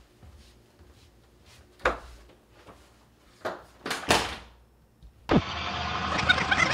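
Footsteps and a few knocks as a bedroom door is pushed shut, with the loudest knocks around four seconds in. About five seconds in, fast-forwarded audio cuts in suddenly: dense, sped-up, high-pitched chatter.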